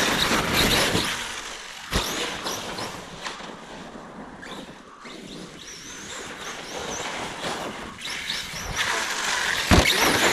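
Large electric RC truck running through wet snow: a rushing noise that swells and fades, with a wavering high motor whine a few seconds in and sharp knocks about two seconds in and near the end.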